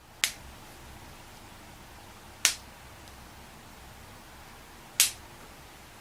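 A joint cracking on demand: three sharp pops, evenly spaced about two and a half seconds apart.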